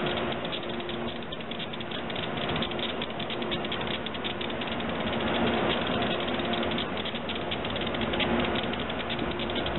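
AEM-7 electric locomotive running slowly: a continuous dense rattling crackle over a faint hum that drops in and out.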